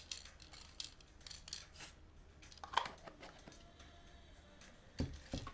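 Faint scattered clicks and light clinks of small parts being handled: white PVC pipe fittings and a small metal can. There is a sharper clink about three seconds in and two knocks near the end.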